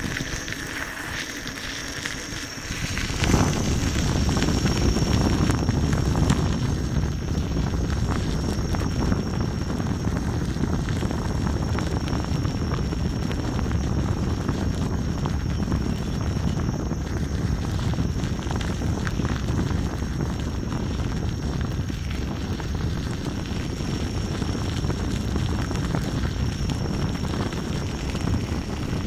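Steady rushing wind noise on the microphone of a camera carried along by a Gotway MSuper3 electric unicycle riding a gravel path, with its tyre rolling over the gravel. The rushing rises sharply about three seconds in, then holds steady.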